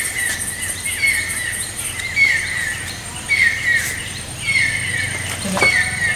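A bird calling over and over, a short phrase of falling chirps repeated about once a second, with a thin steady high whine behind it.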